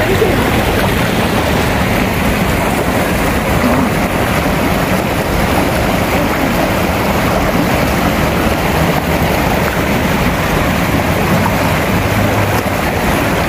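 Shallow river running fast over rocks in rapids: a steady, loud rush of water.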